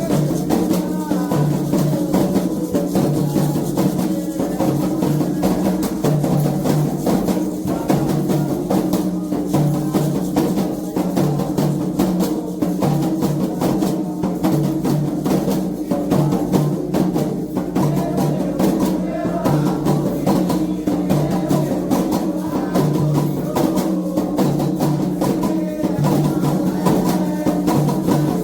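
Candomblé atabaque drums playing a steady, fast toque, with a bright struck percussion part keeping time over the dense drum strokes.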